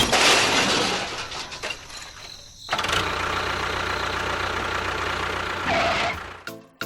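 A small motor running: loud at first and fading, with a brief break about two and a half seconds in, then running steadily until it cuts off near the end.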